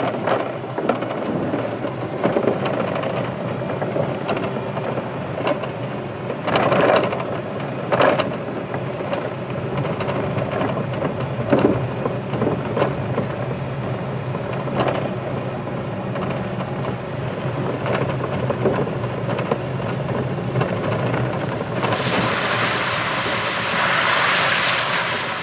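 Golf cart motor running steadily with a low hum under a rumbling noise, a few knocks, and a louder hiss for a few seconds near the end.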